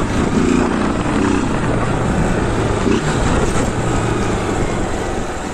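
Small motorcycle engine running steadily while riding, mixed with heavy wind rumble on the tank-mounted microphone.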